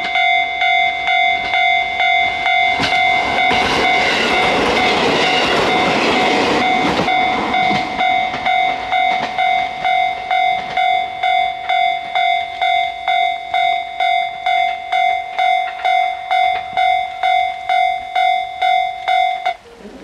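Japanese level-crossing warning bell ringing electronically about twice a second as a JR H100 DeCMO diesel railcar runs over the crossing. The railcar's running noise and rail clatter swell about four seconds in and fade after several seconds. The bell cuts off just before the end.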